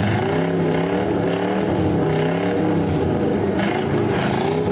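Several demolition derby cars' engines revving together, their pitch rising and falling unevenly, with short bursts of high rushing noise.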